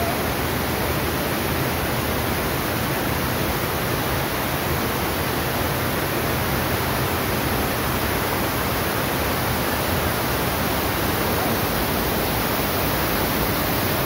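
Waterfall cascading over rock shelves: a steady, loud rush of water.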